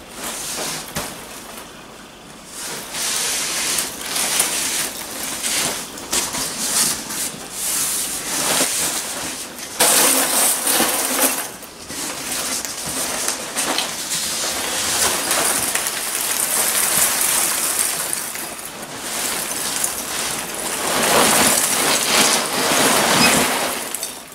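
Polystyrene packing peanuts rustling and clattering as hands dig through them in a cardboard box, with cardboard flaps scraping. The box is tipped and the peanuts spill out onto the table, with louder bursts about ten seconds in and again near the end.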